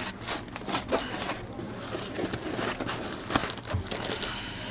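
Plastic packaging crinkling and rustling in irregular bursts as the power supply is unwrapped from its box.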